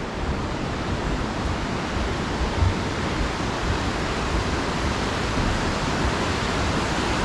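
Fast-flowing creek water rushing steadily, an even, unbroken rush of white water.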